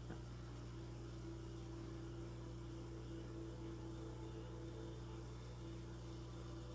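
Steady low hum of running aquarium equipment: powerhead and air pump, with air bubbles rising, plus a faint wavering tone above it. A light click comes right at the start.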